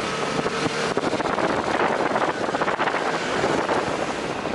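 Vespa scooter engine running with a rapid pulsing, with wind noise on the microphone.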